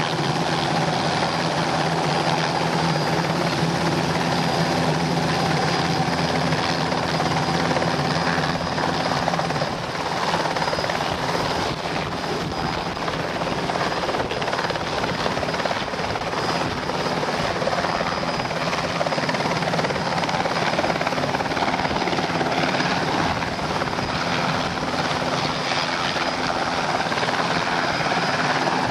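Enstrom 480B turbine helicopter running with its main rotor turning: a steady high whine from its Rolls-Royce 250 turboshaft engine over the rotor noise. Near the end it lifts into a low hover.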